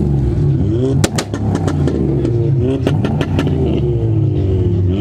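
A modified car's engine being revved repeatedly, its pitch rising and falling, with sharp cracks from the exhaust between revs.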